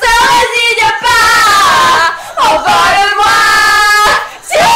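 Two young women singing loudly together, belting long held notes in three or four drawn-out phrases.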